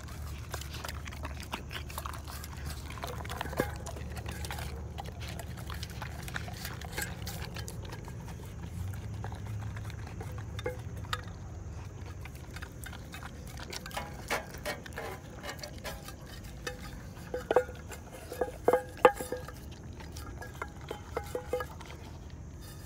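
Dogo Argentino puppy eating from a stainless steel bowl: wet licking and chewing, with its muzzle and teeth knocking the bowl so it clinks and rings. The knocks grow louder and closer together in the second half.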